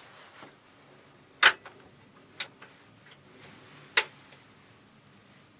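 Sharp metallic clicks of a hunting rifle's action as the shooter tries to fire and the round fails to go off: a misfire. The two loudest clicks come about a second and a half in and at four seconds, with a softer one between.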